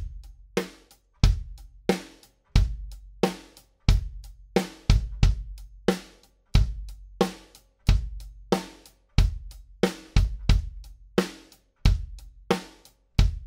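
Drum kit playing a steady beat of kick drum, snare and hi-hat cymbals, with a heavy kick stroke about every 1.3 seconds and other hits between. It is picked up by a Shure Beta 52 dynamic mic placed on the batter side of the kick drum, with the snare bleed reduced in mixing.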